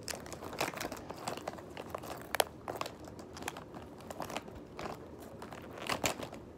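School supplies such as markers, crayons and glue sticks being handled and packed back into a pencil case: irregular clicks and crinkling rustles, with a sharper click about two and a half seconds in.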